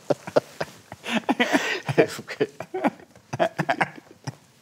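Two men laughing: a run of breathy chuckles and short bursts of laughter that die down near the end.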